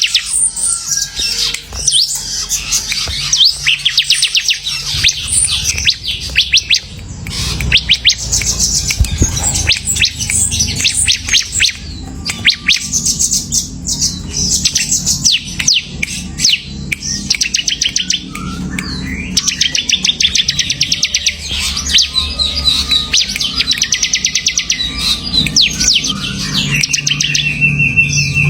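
Ciblek (prinia) singing steadily, its song long fast trills of rapidly repeated high notes, phrase after phrase with short breaks between them, over a low background rumble.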